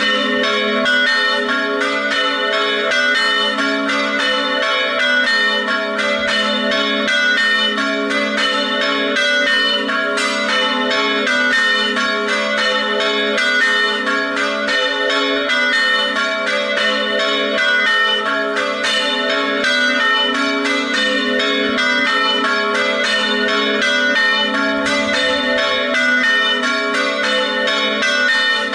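Three church bells tuned A3, B3 and C♯4 ringing a festive peal: a rapid, unbroken stream of overlapping strokes at a steady level.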